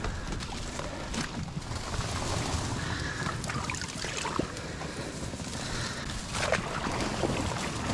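Inflatable PVC boat moving among dry reeds: reed stalks and camouflage netting rustle and crackle against the boat while water sloshes around the hull.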